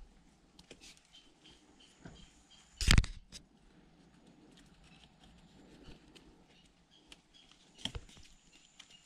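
Close rustling and small clicks of hands tying a thin cord around a bent stick among leaves and grass, with one loud knock about three seconds in and a smaller knock near the end.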